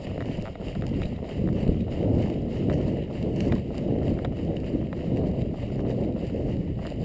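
Running footsteps on asphalt in a steady rhythm, under a continuous low wind rumble on the moving camera's microphone.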